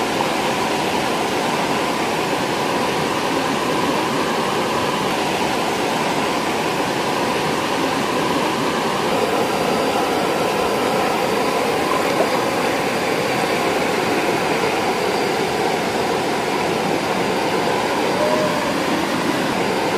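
Steady rushing of a small waterfall and river water, an even wash of noise with no breaks. A faint steady high tone joins about halfway through.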